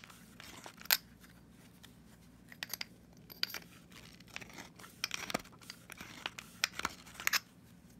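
Klein Tools hand reamer twisted inside the cut end of a short metal conduit nipple, scraping off the burr in irregular short scrapes and clicks.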